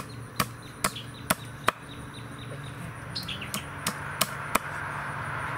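Knife chopping into a paddlefish carcass on concrete, sharp chops about every half second in two runs of about five. Birds chirp, and a rising rush of passing traffic builds toward the end.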